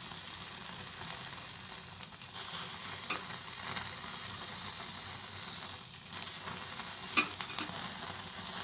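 Gas stove burner flame hissing steadily while marinated cauliflower on metal skewers sizzles as it roasts directly in the flame. A few light clicks, the sharpest about seven seconds in.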